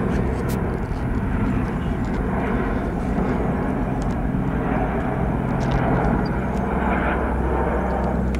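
Engine noise of a C-17 Globemaster III transport flying past, with a C-47's piston engines in the same pass: a loud, steady roar with a low hum underneath.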